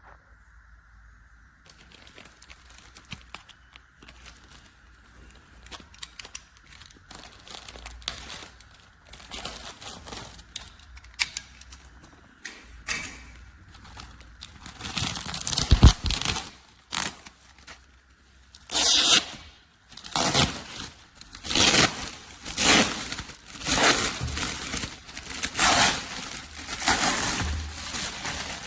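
Rustling and crinkling handling noise, rising in the second half into a run of rough rubbing or scraping strokes about once a second.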